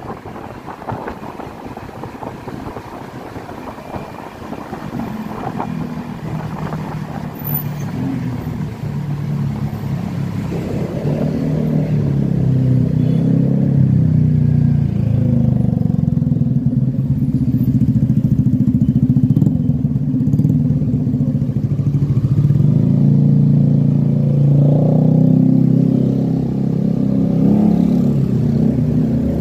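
Riding a Honda Beat scooter: wind rushing over the microphone at first. Then, from about five seconds in, the steady hum of the scooter's engine and of the motorcycles bunched close around it grows louder as the traffic slows.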